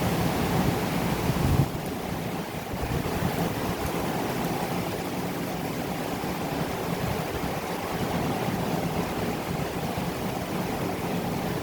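Moderate rain falling steadily, with wind. A louder low rumble in the first second and a half drops away suddenly, leaving an even wash of rain.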